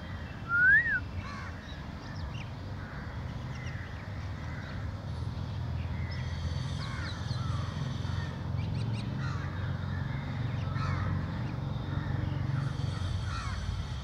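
Outdoor birdsong: one loud clear call that rises and falls, about half a second in, then scattered short chirps from several birds over a steady low rumble.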